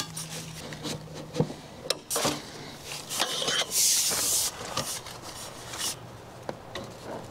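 Knocks, clicks and rubbing of the Starlink dish's mast being worked onto its pole mount, with a hissing scrape about four seconds in. A faint low steady hum runs underneath.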